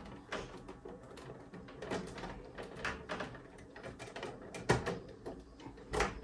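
Scattered small clicks and taps of hand work at a combi boiler's wiring plug, a screwdriver and cable being handled as wires are fixed into the terminals. Two sharper knocks stand out, one just under five seconds in and one near the end.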